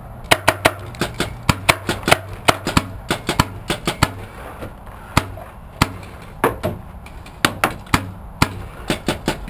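Paintball markers firing: rapid, irregular sharp pops, often several in quick succession with short gaps between volleys.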